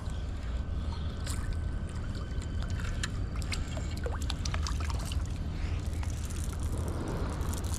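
A small jack thrashing and splashing at the water's surface as it is reeled in on a spinning rod, with scattered short clicks, over a steady low rumble.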